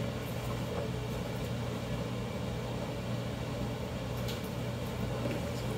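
A steady low hum of room tone, with a couple of faint light clicks.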